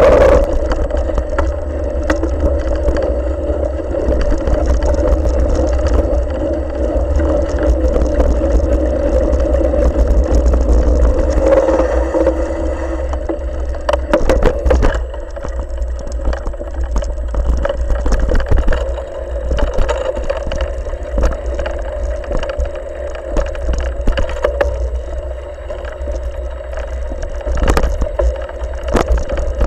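A bike being ridden along a trail, heard through a mounted camera. Wind rumble buffets the microphone over a steady hum. From about halfway in, the ride over rough, rocky ground adds frequent knocks and rattles.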